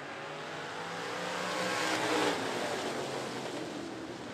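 A pack of dirt-track stock cars and trucks accelerating past together on a start attempt, their engines swelling to a peak about two seconds in and then falling away.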